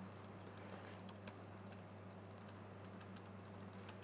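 Computer keyboard being typed on: a quick, irregular run of faint key clicks over a steady low hum.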